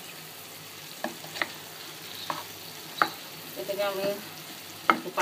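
Wooden spatula stirring and scraping beef frying in oil in a non-stick pan, over a steady sizzle, with about five sharp knocks of the spatula against the pan.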